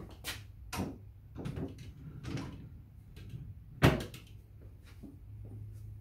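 Wooden knocks and short scrapes of an MDF dresser drawer being handled, with a sharp knock about four seconds in.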